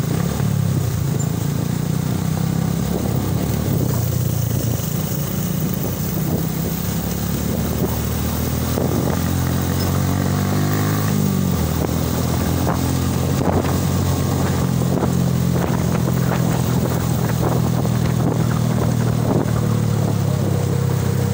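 Motorcycle engine running steadily while under way, heard from on board, over a haze of road noise. The engine note glides and changes pitch about ten seconds in, then settles again.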